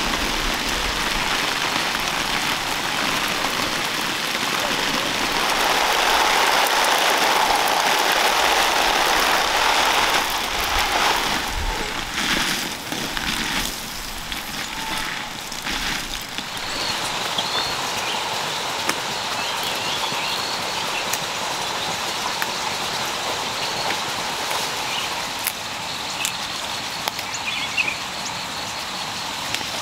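Water from a garden hose spraying out and falling on cabbage leaves: a steady hiss and patter like rain, loudest about a third of the way in. About halfway through it gives way to quieter outdoor ambience with faint high chirps and small rustles.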